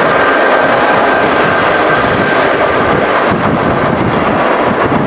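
Boeing 777-300ER's GE90-115B jet engines running: a loud, steady rushing noise with faint high whining tones.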